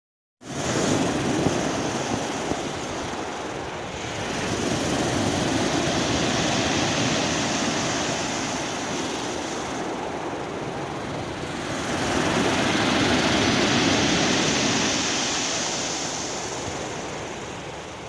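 Sea waves breaking and washing over a round-pebble beach, the surf rising and falling in three swells.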